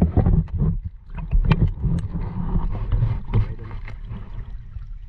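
Seawater sloshing and gurgling around a camera held in the water, with irregular knocks and handling bumps; it grows quieter near the end.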